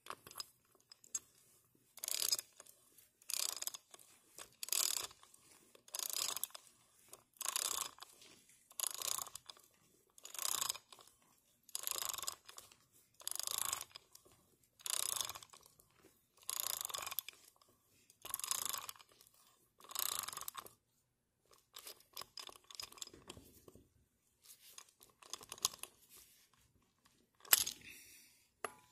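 Socket ratchet wrench tightening a wheel hub nut: about thirteen bursts of rapid ratchet clicking, one on each back-swing, roughly every one and a half seconds. After that come a few scattered clicks and knocks, with one sharp click near the end.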